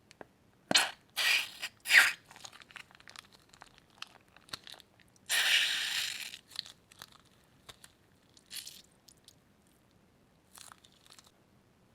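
Crunchy slime being squeezed and pressed, giving short crackling crunches. Three come close together early, then one longer crunch of about a second midway, then fainter crackles.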